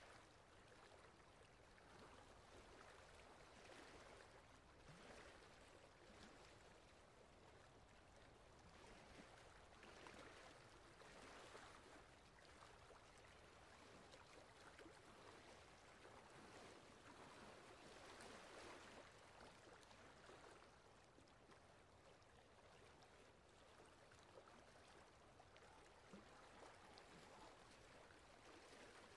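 Faint water sloshing and lapping along a wooden boat's hull as it is paddled, rising and falling every couple of seconds.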